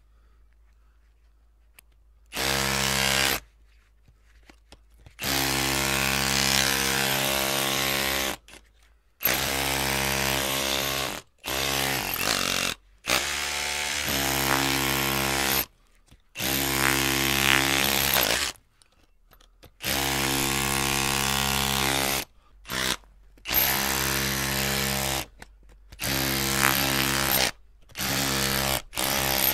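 Electric drill motor running at a steady pitch in repeated short runs of one to three seconds, started and stopped about a dozen times with brief quiet gaps between.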